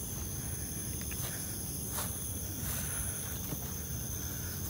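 Night insects, crickets among them, keeping up a steady high-pitched chirring, with a few soft clicks scattered through it.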